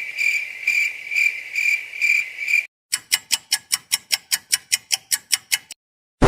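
Cricket chirping, a high steady chirp pulsing about twice a second, which stops after about two and a half seconds. Then comes a run of evenly spaced sharp ticks, about six a second, for nearly three seconds, like a fast clock ticking.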